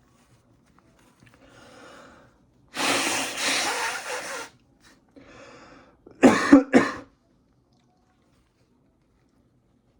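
A person breathing, with a long, loud exhale, then a quick burst of three coughs a few seconds in.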